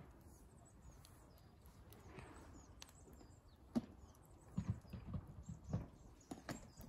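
Scattered light knocks and clicks, irregular, clustered in the second half, with faint high chirps in the background.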